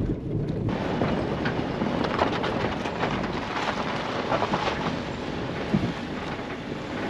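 An SUV driving slowly up a rough dirt and cobblestone mountain track: the tyres are crunching over loose stones and the car is rattling. Under this runs a steady rumble with many small clicks and knocks, and the sound gets louder and brighter less than a second in.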